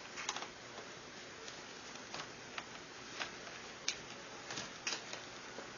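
Scattered light clicks and taps from hands and tools working on a laptop's plastic screen assembly, irregularly spaced.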